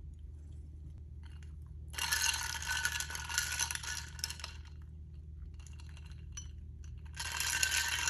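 Two spells of rapid clinking and rattling of small hard objects, each a couple of seconds long, the second starting near the end, over a steady low hum.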